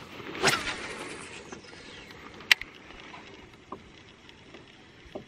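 A cast with a baitcasting rod and reel. There is a quick whoosh of the rod about half a second in, then the hiss of line running off the spinning spool, fading over the next second or so. A single sharp click comes about two and a half seconds in, followed by a few faint ticks as the reel is worked.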